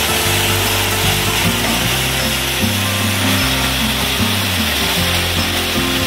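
Combined chaff cutter and grain crusher running steadily while grinding corn into meal, a steady hissing noise, under background music with a stepping bass line.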